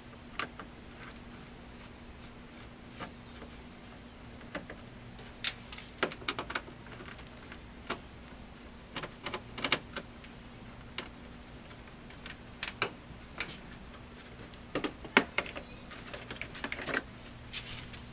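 Irregular sharp clicks and light plastic knocks as a screwdriver works loose the plastic front grille of a Jeep Grand Cherokee, with a faint steady hum underneath.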